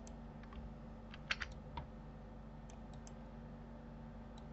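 Scattered clicks of computer keyboard keys, a quick cluster of keystrokes just over a second in and single ones after, over a faint steady low hum.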